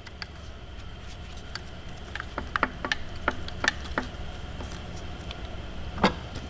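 Scattered light clicks and knocks of hand tools and engine parts as someone works at pulling the balance shaft out of a torn-down Audi 3.0T V6 block, with a cluster of taps in the middle and one louder knock near the end. The shaft stays stuck.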